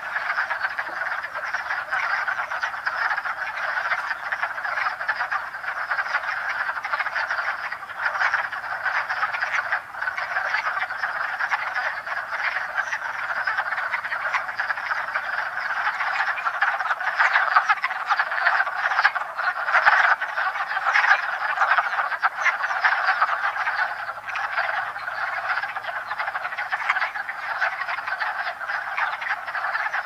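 A full breeding chorus of wood frogs in a vernal pool: many frogs clucking at once in a dense, continuous overlapping din, swelling a little past the middle.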